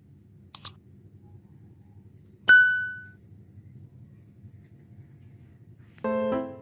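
Two quick clicks, then a single bright ding that rings out for about half a second. Piano music starts near the end.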